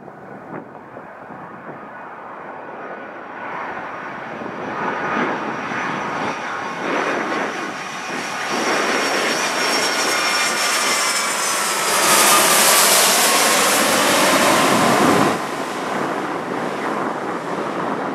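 Boeing 757's twin jet engines on landing approach, growing steadily louder as the aircraft nears and passes close by, with a whine that falls in pitch. The sound is loudest for a few seconds, then drops off suddenly near the end as the aircraft goes past.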